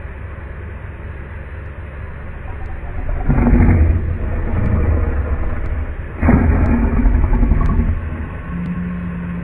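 Steady low rumble of an idling vehicle engine. Two loud, deep pitched sounds stand out over it, each lasting about a second, about three and six seconds in.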